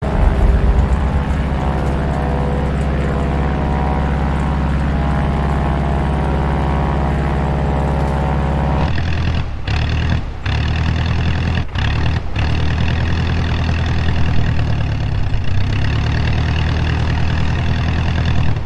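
Biplane's piston engine running with a steady drone. About nine seconds in, its tone changes, with a few brief dips.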